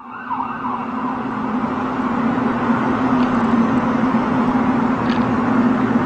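A loud, steady, droning hum over a rushing noise, building slightly, of the kind presented as an unexplained 'strange sound' or skyquake heard in the sky.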